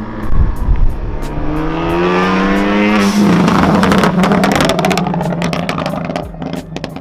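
Ford Focus ST's turbocharged 2.0-litre four-cylinder on a straight-piped MBRP turboback exhaust, revving up hard as the car accelerates past. About three seconds in, the driver lifts off: the revs fall and the exhaust fires a rapid run of crackles and pops on the overrun from the crackle tune.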